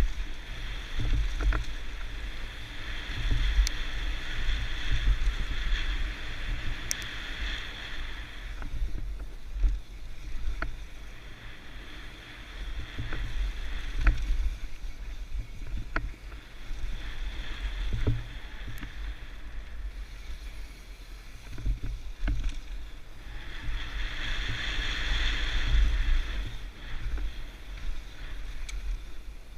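Mountain bike descending a bike-park trail: wind buffeting the microphone, a hiss from the tyres that swells in two long stretches, and scattered clicks and knocks from the bike rattling over the ground.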